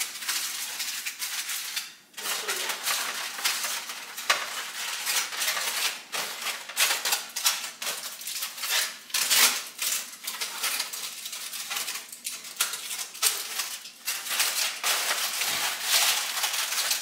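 Aluminium foil and foil pans crinkling and rustling as they are handled, a dense crackle of many small sharp crinkles.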